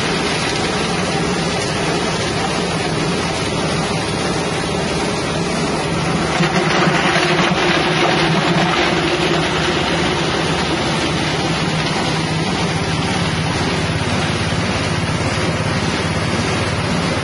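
Hammer-mill spice grinder driven by a 6.5 hp engine, running steadily while it grinds root spice pieces. The mixed engine-and-grinding noise is continuous and gets a little louder between about six and nine seconds in.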